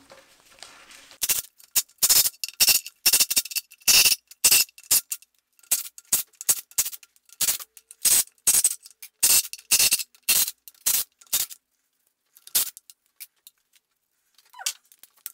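Ratchet wrench clicking in quick irregular bursts as 12-point screws are undone on the engine, each click with a metallic ring; the clicking thins to a few scattered clicks after about eleven seconds.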